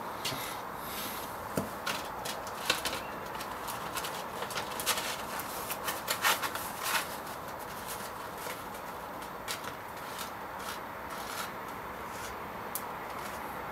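Scattered short scrapes and clicks of hands and a small object on stone paving, thicker in the first half and sparser later, over a steady outdoor street hiss.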